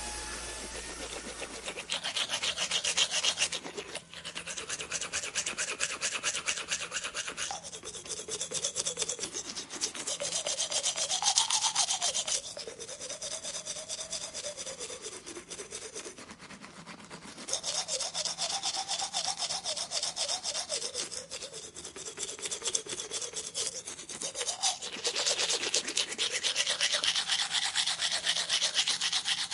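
Dental equipment working at a tooth in stretches of a few seconds: a fast, rasping scrape, with a wavering tone underneath that rises and falls.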